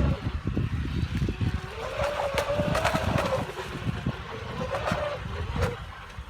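An RC model boat's brushless electric motor and two-blade propeller, heard as a faint whine that rises and falls with the throttle about two seconds in and again near the end. Heavy wind buffets the microphone throughout.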